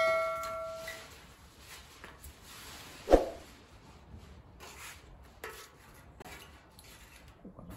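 Sheet steel being handled: a metallic ring dies away over the first second, a dull thump comes about three seconds in, then light scraping and rubbing against the metal.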